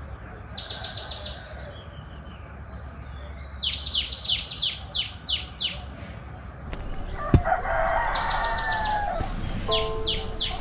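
Small birds chirping in several quick runs of short, high, falling notes. A rooster crows for about two seconds starting around seven seconds in, with one sharp knock near its start. Music with steady notes comes in near the end.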